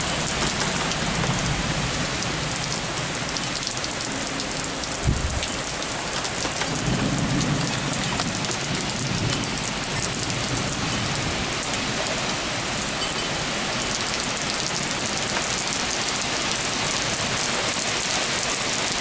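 Heavy rain pouring steadily, with low rumbles of thunder swelling twice. A brief thump about five seconds in.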